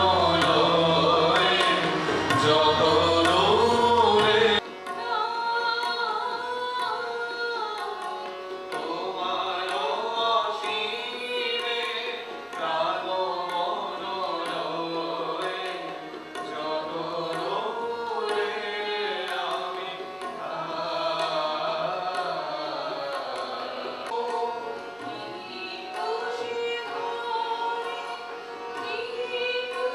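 Voices singing a song to harmonium and tabla accompaniment, with the tabla keeping a steady beat. The sound changes abruptly about four and a half seconds in, as the recording cuts to a quieter passage of the song.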